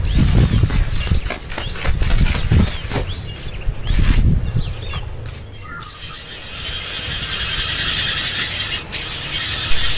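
A few short high bird chirps over heavy low rumbling on the microphone; from about six seconds a steady high hiss takes over.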